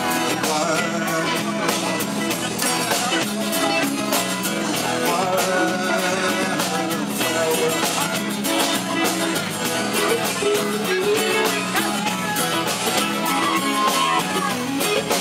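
Live rock band playing an instrumental stretch: electric guitars over bass and drums, with cymbals hit on a steady beat.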